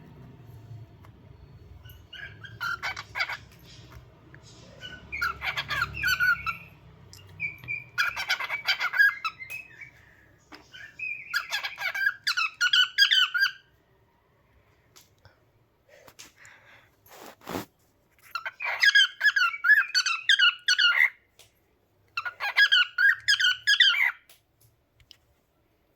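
Pet cockatiel chirping and squawking in quick bursts of rapid, warbling notes, about six bursts with short pauses between them. A single sharp click falls during the longer pause about two-thirds of the way through.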